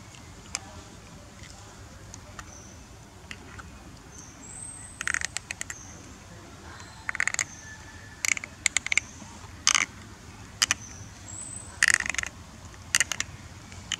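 A baby macaque drinking water from a small plastic bottle: irregular clusters of short wet clicks and crackles, mouth smacking on the bottle and the plastic crinkling, starting about five seconds in. A few faint high peeps sound in between.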